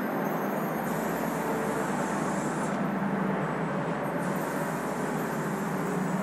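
Aerosol spray-paint can hissing in two bursts, the first starting about a second in and lasting about two seconds, the second starting about four seconds in, over a steady low rumble.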